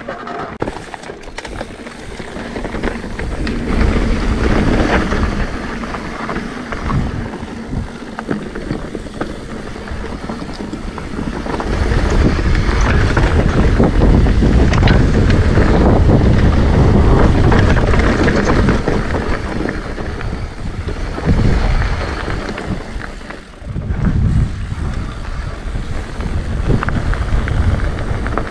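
Wind rushing over the microphone and mountain bike tyres rolling on a gravel dirt trail during a fast descent, with occasional small knocks. The rush is loudest through the middle and drops briefly about two-thirds of the way through.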